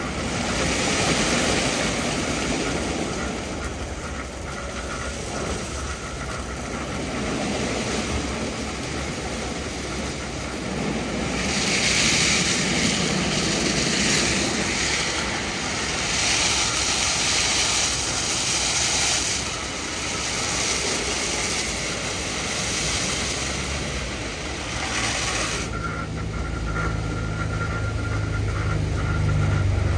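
2005 Istobal M12+ rollover car wash working polish into the car: the CarLite washing brushes spin against the bodywork over the steady noise of the machine's motors. A louder hiss comes in from about twelve seconds in to about twenty-five, and a low motor hum sets in near the end.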